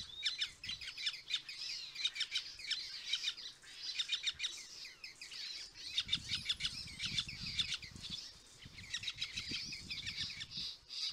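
Birds chirping in quick runs of short, high notes, with brief breaks between the runs.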